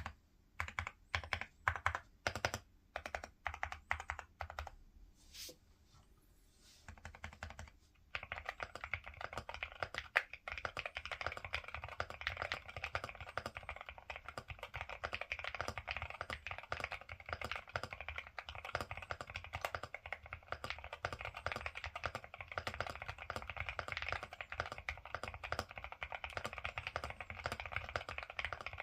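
Typing on a Cidoo V65 V2 mechanical keyboard with Akko Rosewood switches: a handful of single, spaced-out keystrokes first, then from about eight seconds in a steady stream of fast continuous typing.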